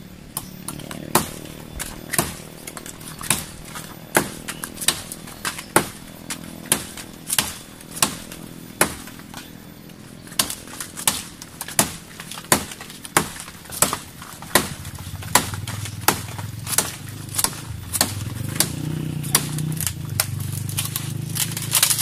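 Machete hacking at a teak branch: a long run of sharp, even chopping strikes, about one and a half a second, coming a little faster in the second half.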